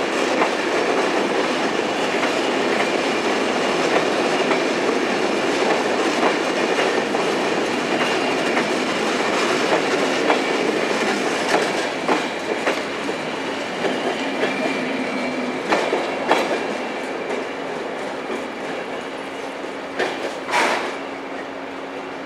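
Corail passenger coaches rolling past, their wheels clattering irregularly over rail joints and points, the rumble slowly fading as the train draws away. There is one short sharp noise near the end.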